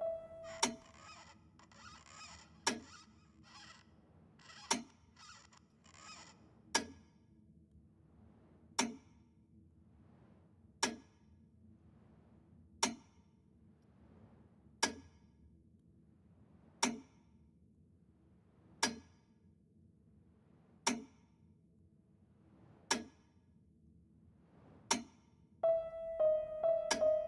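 Slow, regular metronome ticks, about one every two seconds, with soft hissing swishes in the first few seconds; a piano comes back in near the end.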